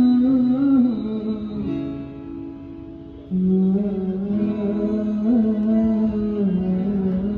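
Guitar playing with a voice holding long wordless notes over it. The music drops back about two seconds in and comes in strongly again a little past three seconds.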